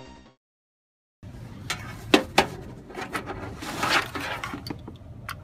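A music tail fades out, followed by about a second of silence. Then comes handling noise from a hand picking up and moving a beige plastic computer device on a table: irregular plastic clicks and knocks, the loudest two a little after two seconds in, over light rustling.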